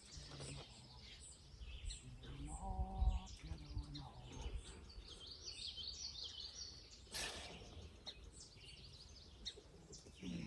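Small birds chirping, with one drawn-out livestock bleat about three seconds in and a short rustle a little after seven seconds.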